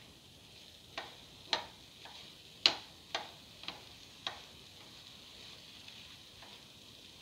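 A spatula knocking against a pan about six times in quick succession while stirring thick ground coconut paste, the loudest knock in the middle. Under it, a faint steady sizzle of the paste frying.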